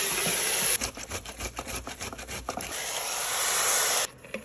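Raw chicken pieces sizzling in hot oil in an Instant Pot's stainless inner pot on sauté, with a run of clicks and knocks as the pieces drop in and settle. The sizzle cuts off suddenly near the end.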